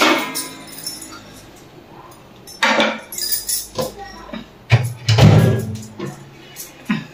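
Kitchen handling sounds: several short bursts of clinks and knocks as utensils and a cabinet door are handled, loudest about five seconds in.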